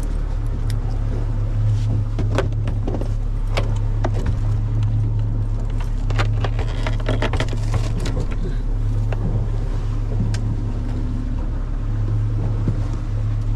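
Boat's outboard engine running with a steady low hum, with scattered clicks and knocks of handling on the deck.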